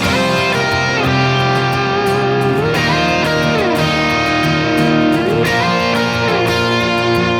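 Instrumental intro of a country-rock song: electric guitar playing a lead line with bent, sliding notes over a steady band backing.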